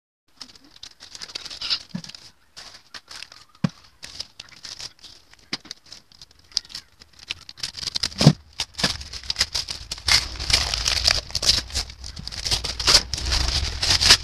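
Scissors cutting open a brown-paper parcel sealed with clear tape: paper and plastic crinkling and rustling with scattered clicks, a sharp knock about eight seconds in, then denser tearing and rustling with low handling thumps as the package is pulled open.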